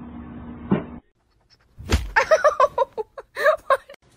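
A single sharp thump, then a quick run of short, high-pitched voice sounds, breaking several times a second.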